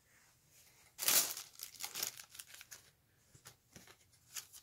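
Crinkly packing paper from a cat subscription box rustling and crackling as a Burmese cat pushes its head into it. A loud burst of crinkling comes about a second in, followed by a run of crinkles and then scattered single crackles.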